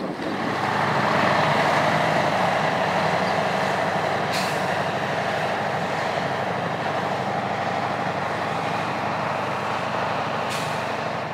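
Scania V8 truck engine of 450 hp in a Steiger Cougar tractor running steadily as it pulls a nine-furrow reversible plough. Two brief hisses come through, about four seconds in and again near the end.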